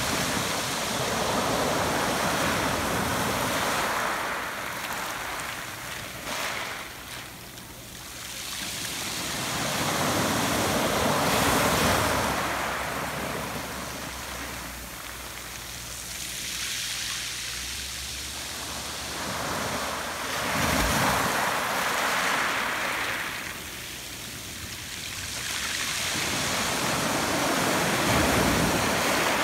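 Surf washing up over a beach of small rounded pebbles and draining back through them, the wash swelling and fading in several surges every few seconds.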